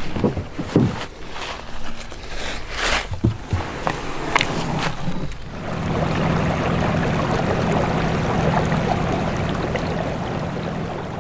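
Footsteps and rustling through dry leaves as a deer is dragged on a rope. About five and a half seconds in, this gives way to the steady hum of a Minn Kota Endura C2 electric trolling motor and water rushing along the side of a moving canoe.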